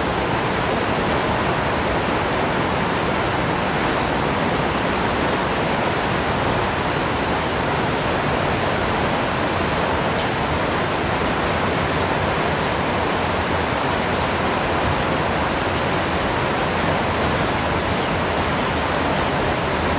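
Hailstorm pouring down: a steady, dense hiss of falling hail and rain that does not let up.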